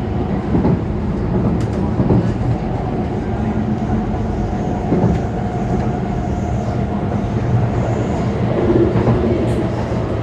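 MTR East Rail Line SP1900 electric train running: a steady rumble with a low hum and a few faint clicks.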